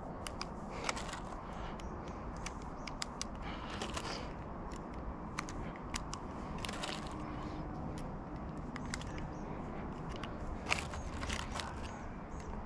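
Rimfire .22 rounds being pushed one at a time into a Glock 44 magazine: scattered light clicks at an uneven pace, over a steady outdoor hiss.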